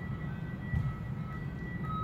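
A simple chiming melody of single high notes, stepping from note to note, over a steady low rumble.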